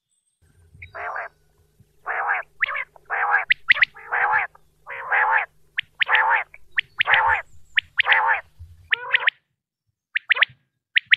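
Common quail calling from a recording: a run of about nine harsh, buzzy calls, roughly one a second, over a low hum. About ten seconds in, the sharp, high, quick-note calls start again.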